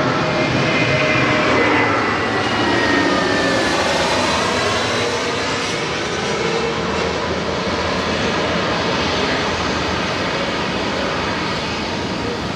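Jet airliner passing close overhead, its engine whine gliding down in pitch during the first few seconds as it goes by, then a steady jet roar slowly fading.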